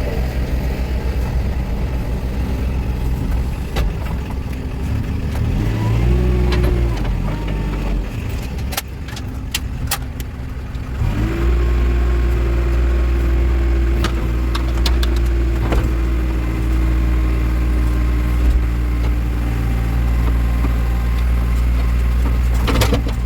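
Backhoe loader's diesel engine running, throttled up about halfway through and held at high revs, then easing down near the end, with scattered knocks and clanks.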